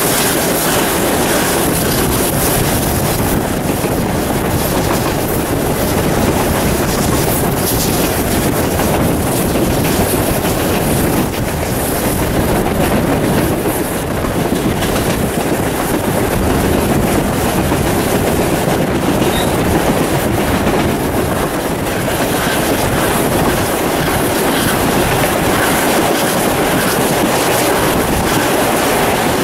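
A steam-hauled heritage train running steadily, heard from an open carriage window: the continuous rumble and clatter of steel carriage wheels on the rails, with South Australian Railways 520-class 4-8-4 steam locomotive 621 working at the head of the train.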